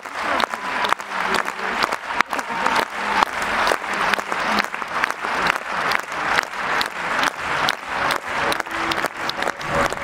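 Arena crowd applauding, the clapping falling into a steady rhythm of about two to three claps a second.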